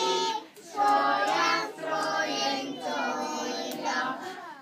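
A group of young nursery children singing a song together.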